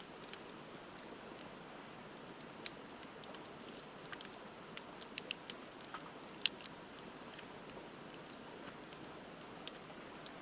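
Wood fire crackling, with irregular sharp pops that bunch together in the middle and one loudest pop about six and a half seconds in, over the steady rush of a river.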